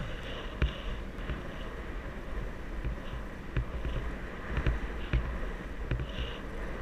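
Steady wind and road rumble from a camera riding on a moving vehicle along a paved road, with a few sharp knocks along the way.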